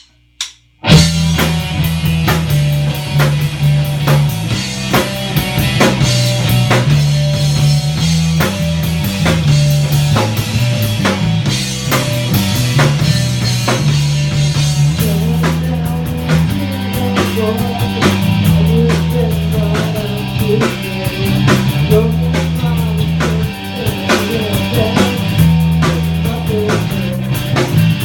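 Rock band playing: drum kit, bass and guitar come in together abruptly about a second in, right after a click, and play on at a steady beat.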